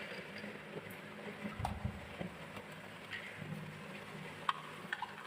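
Marbles rolling on a wooden marble run, a low rumble broken by a few scattered sharp wooden clicks.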